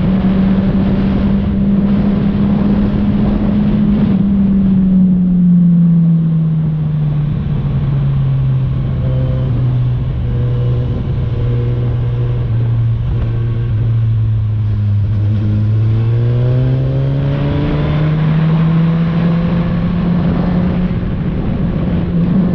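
Suzuki Katana motorcycle engine through an aftermarket Orion exhaust while riding. It runs steady, then the revs drop off about four seconds in and hold low. Around fifteen seconds in the revs climb again and level off.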